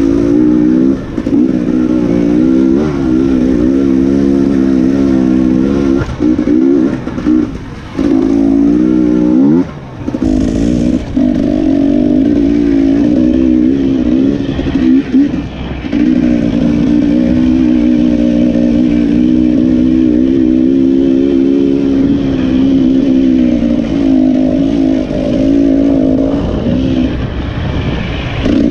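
Dirt bike engine running under load on a trail ride, the pitch rising and falling as the throttle opens and closes, with a few brief drops in the first third and a steadier run in the second half.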